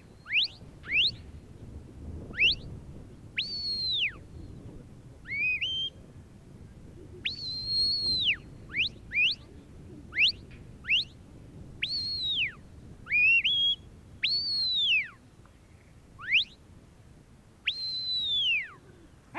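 A sheepdog handler's whistled commands to a working Border Collie: a run of shrill whistles with pauses between, mixing long high held notes that drop away at the end, quick rising chirps and short two-note calls. These are the signals that steer the dog around the sheep.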